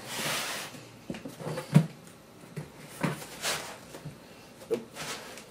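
Cardboard shipping box being torn open by hand: a ripping stretch at the start, then rustling and several sharp knocks as the cardboard is pulled and handled.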